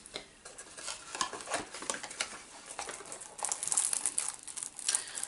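Small clicks and rustling as a skin-cream jar and its cardboard presentation box are handled, with the crinkly rubbing of the packaging getting busier in the second half.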